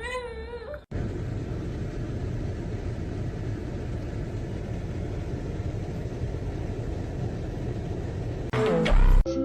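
A cat's wavering meow, cut off under a second in, then a steady low rumbling noise that runs on until a louder moment near the end.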